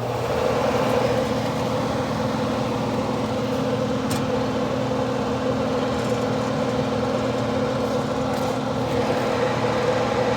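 Newly installed air-handler blower motor starting up and running on its first test: a steady electric motor hum with air rushing through the blower wheel. On this test run it is turning backwards, with its rotation wired the wrong way round.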